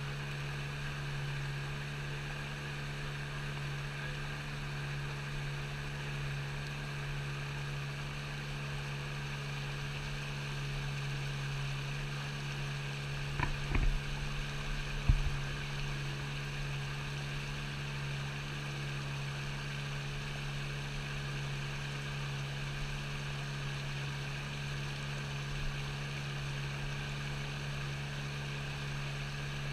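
A steady low mechanical hum, with a couple of short knocks about halfway through.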